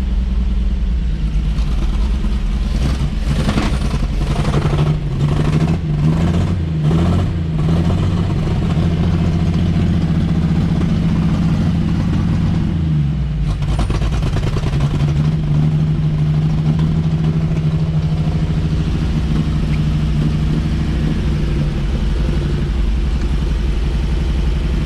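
1954 Chevrolet 3100 pickup engine running and warming up, on a carburetor the owner calls junk. The throttle is blipped a few times in the first several seconds, there is a shift in engine speed around the middle, then it settles to a steady run.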